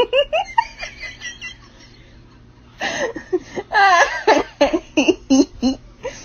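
A person laughing in short bursts: a few quick rising giggles at the start, then a longer run of laughter from about three seconds in.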